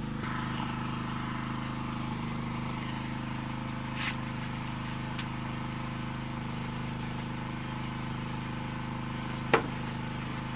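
Steady low hum of a small engine running, with two sharp pops: a faint one about four seconds in and a louder one near the end.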